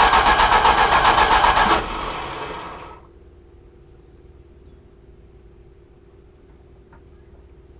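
A 340 small-block V8 turning over with an even pulsing beat, which stops abruptly about two seconds in and dies away over the next second without the engine running on. A faint steady hum follows.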